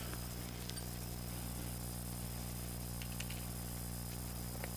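Quiet hand-handling of the motorcycle's oil-filter cover and its bolts: a few faint, light clicks over a steady low hum.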